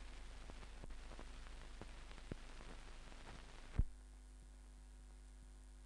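Hiss and scattered faint clicks from an old film soundtrack, broken by one loud pop about four seconds in, after which only a steady low hum remains.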